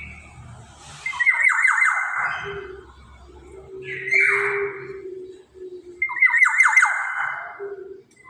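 Black-naped oriole (kepodang) giving harsh, nasal rasping calls, three times. Two of the calls open with a quick run of clicky notes. A steady low hum comes and goes between the calls.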